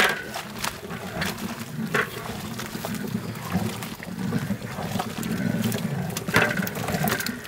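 Ragi flour slurry pouring from a large metal vessel into a big pot of boiling water: a steady gushing, bubbling rumble, with a few short knocks.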